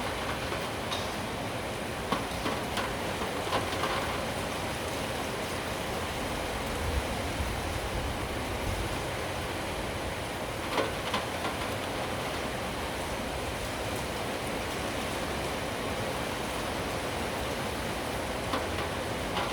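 Steady rain, an even hiss with scattered sharper drips and taps, a cluster of them about two to four seconds in and another around eleven seconds in. A low rumble sits under the rain for a couple of seconds around the middle.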